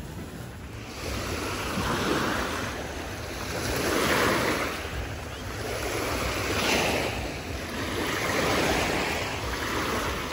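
Small lake waves breaking and washing up on a sandy, pebbly beach, each swell of surf rising and falling about every two seconds.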